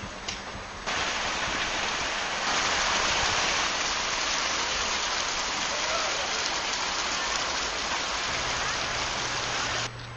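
A steady hissing, rushing noise that starts abruptly about a second in, grows a little louder soon after, and cuts off abruptly near the end.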